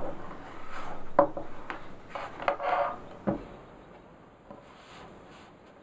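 Handling noise from a small plastic MIDI keyboard, the M-Audio Axiom Air Mini 32, being set down and shifted on a table with its USB cable: a few sharp knocks and rubbing scrapes over the first three seconds or so, fading to faint noise after that.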